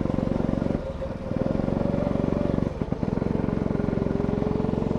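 Go-kart engine running steadily under throttle, heard from on board the kart. Twice it briefly eases off, about a second in and near three seconds, before picking up again.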